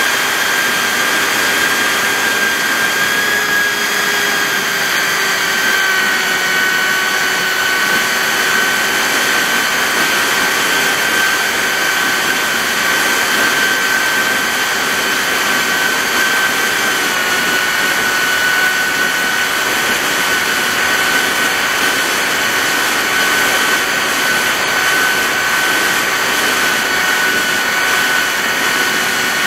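RC airplane's motor and propeller whining steadily, heard from a camera on board, with air rushing past; the pitch dips slightly twice.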